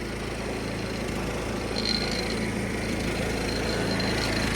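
A 1976 John Deere 300 riding lawn tractor's engine runs steadily under way, a continuous even drone.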